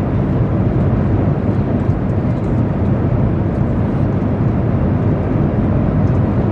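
Steady low rumble of cabin noise inside a jet airliner, heard from a passenger seat.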